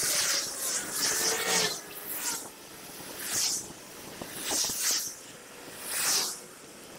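Ride noise from a bicycle on an action camera, played back fast: a run of short rushes of hiss, about one a second, with faint whining tones under them.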